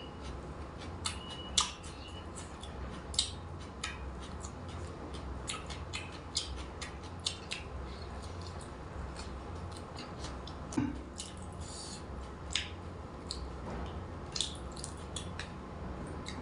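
Close-up eating sounds: irregular crunches, smacks and mouth clicks of someone chewing food, over a steady low hum.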